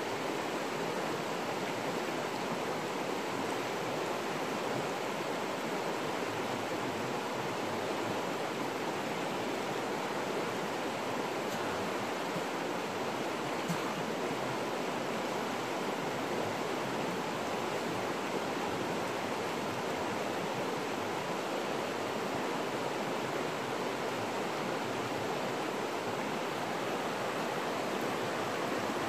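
Steady rush of a river's flowing water, an even hiss with no breaks, with one faint click about fourteen seconds in.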